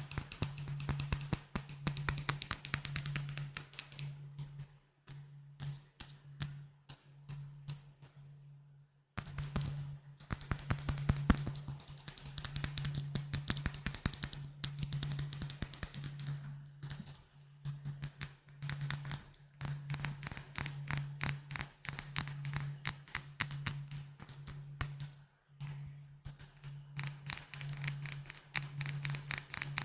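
Rapid tapping on glass bottles: dense runs of quick, crisp taps with a short high ring. About five seconds in the taps slow to a handful of separate ringing strikes, then stop briefly before the fast tapping resumes.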